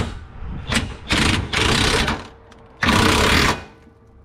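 An impact wrench running in bursts on the subframe bolts: a few quick blips, then one burst of about a second and another shorter one.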